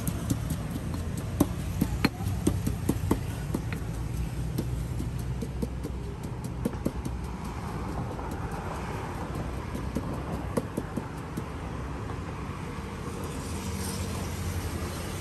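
Busy street background: a steady low rumble with scattered short, sharp clicks and knocks, most frequent in the first few seconds, and a broad rushing swell around the middle.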